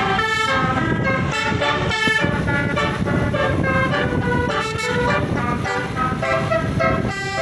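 Indonesian bus 'telolet' basuri horn, a set of roof-mounted trumpet horns, playing a rapid multi-note tune that keeps changing pitch, over the low noise of the running vehicle.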